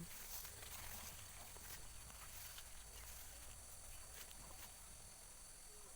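Near silence: faint outdoor ambience with a steady low hum and a few faint ticks.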